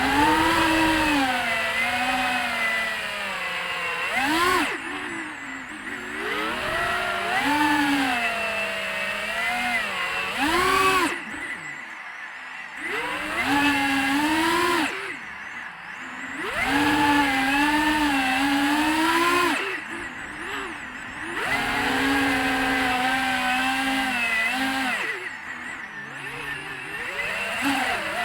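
Brushless motors of an FPV freestyle quadcopter whining, the pitch rising and falling with the throttle. The sound drops off briefly several times where the throttle is cut.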